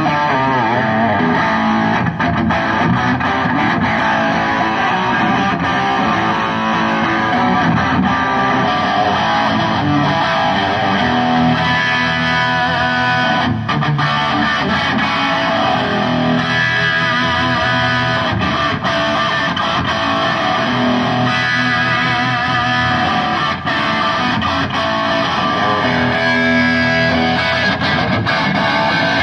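Distorted electric guitar played through effects, a continuous run of sustained notes and phrases.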